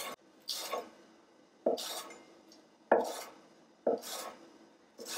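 Chef's knife slicing through stacked fresh sage leaves onto a wooden cutting board, cutting thin chiffonade strips. Five even strokes about a second apart, each a sharp tap followed by a short fading scrape.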